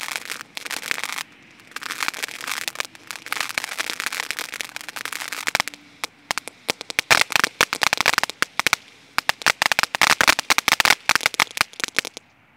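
Cupid in Love ground fountain firework burning: a hissing gush of sparks laced with dense crackling. The crackle comes in waves, heaviest in the second half, and cuts off suddenly near the end.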